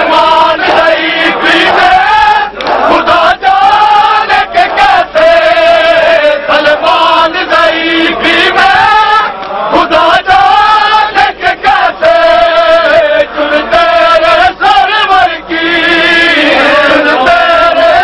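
Men chanting a Shia mourning lament (nauha) loudly in a repeating sung melody, many voices together.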